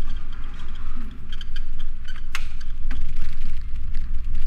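Riding noise of a bicycle picked up by a GoPro Hero 9: a steady rumble of wind and road on the microphone, with light rattling ticks and a sharp click a little past two seconds in.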